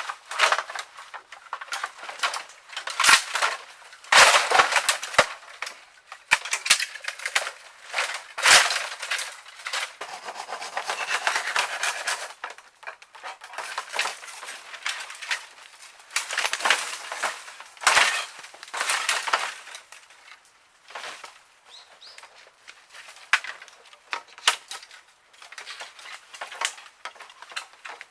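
Dry dead bamboo being broken and handled: irregular crunching and rustling with sharp cracks and snaps scattered throughout.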